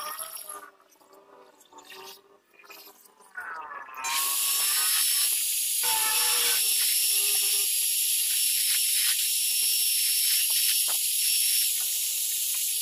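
Small metal lathe turning a metal part. The cutting noise drops off near the start and, about four seconds in, the tool bites again with a steady, high hiss and thin whine that holds.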